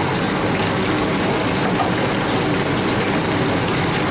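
Battered chicken strips sizzling and bubbling in the hot oil of a commercial deep fryer, a steady hiss.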